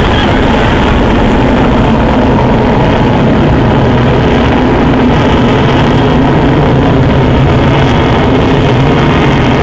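Jet engines of a delta-wing jet in flight overhead, a loud steady roar with a deep rumble underneath.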